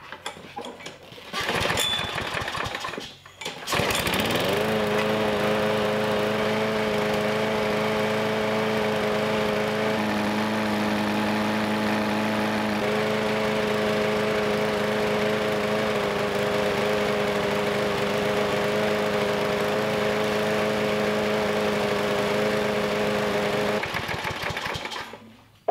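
Craftsman push mower's small single-cylinder engine pull-started, catching about four seconds in, rising briefly in pitch and then running steadily on gasoline laced with sugar. It falls away near the end.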